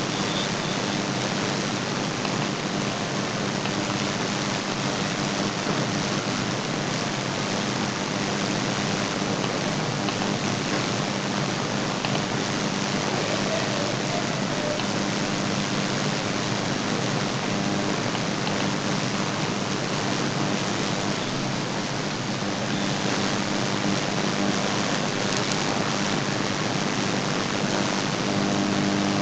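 Steady hiss with a low, even hum underneath and no other events: the background noise of the recording itself.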